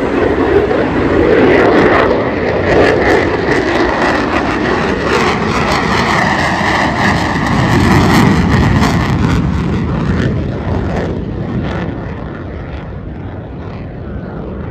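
F-35A Lightning II fighter jet passing low, its Pratt & Whitney F135 turbofan making loud jet noise with a steady high whine. The noise swells twice, then fades over the last few seconds as the jet climbs away.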